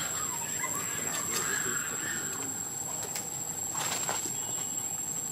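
Faint short animal squeaks or chirps, mostly in the first two seconds, with a few light knocks and rustles.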